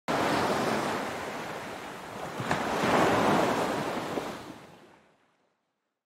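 Ocean waves rushing and breaking, surging a second time about two and a half seconds in, then fading out about five seconds in.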